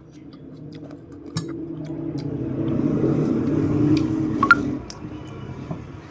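A motor vehicle passing by, its engine growing louder, peaking and fading away over a few seconds. Small clicks sound throughout, with a brief higher tone near the loudest point.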